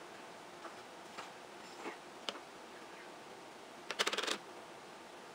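A plastic craft stencil being shifted and pressed flat against paper on a tabletop by hand: a few light scattered taps and rustles, then a quick rattle of clicks about four seconds in.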